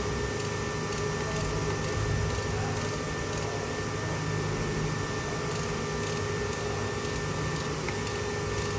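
Steady machine hum with a constant whine and a low drone, unchanging throughout.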